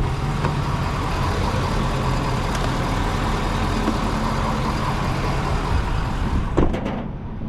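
A vehicle engine idling steadily under an even background hiss. A few knocks come near the end, and then the hiss thins out.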